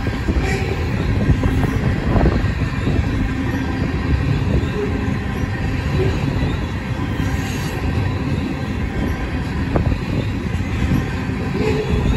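Loaded ethanol tank cars of a freight train rolling past: a steady, loud rumble of steel wheels on rail.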